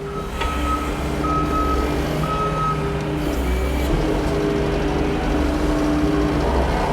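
New Holland L318 skid steer running, with its reversing alarm beeping three times in the first few seconds, then only the engine and hydraulics droning on.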